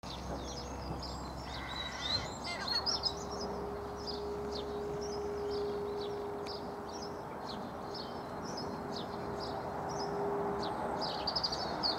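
Small birds chirping in quick, high, repeated calls throughout, over a steady low drone that starts a couple of seconds in and fades out near the end.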